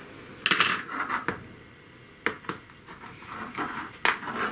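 Plastic clicks and short scrapes from a dot-matrix printer ribbon cassette being handled and its feeder mechanism fitted into place: a longer scrape about half a second in, then scattered sharp clicks.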